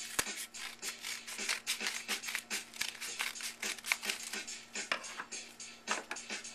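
Scissors cutting open the end of a padded paper bubble mailer: a quick run of snips with paper crinkling, several short sharp strokes a second.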